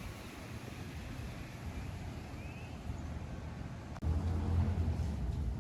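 Outdoor wind noise rumbling on the microphone, a steady low haze with no clear machine rhythm, that suddenly jumps louder about four seconds in.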